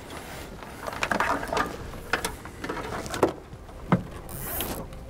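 Nylon zip ties ratcheting as they are pulled tight around a thin wire and corrugated wire loom: a series of short, irregular rasps and clicks with some handling of the plastic loom.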